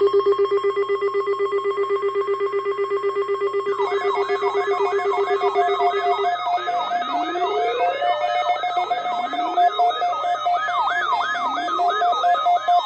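Layered electronic emergency-alert alarm tones: a rapidly pulsing buzzing tone, joined about four seconds in by fast repeating siren-like warbles, a steady tone, and slow rising wails every two to three seconds. The pulsing tone drops out about six seconds in.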